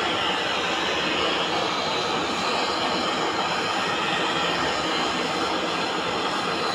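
Gas brazing torch flame burning with a steady rushing noise as it heats the copper return bends of an air-conditioner cooling coil for brazing.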